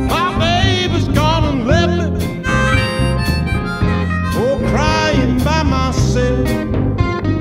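Blues band instrumental break: a lead line of bent, sliding notes played over bass guitar and drums with a steady beat.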